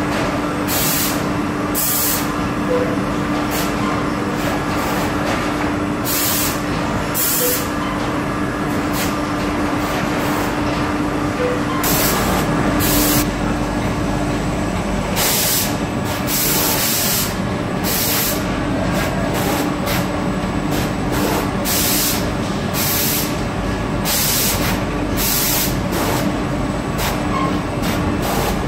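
Foltex AT230 airline blanket folder running: a steady machine hum with a fixed low tone, broken again and again at irregular intervals by short hisses of air.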